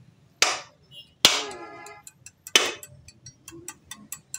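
Metal parts and hand tools clanking on an automatic transmission casing: three sharp clanks about a second apart, the second ringing briefly, then a quick run of light metallic ticks near the end.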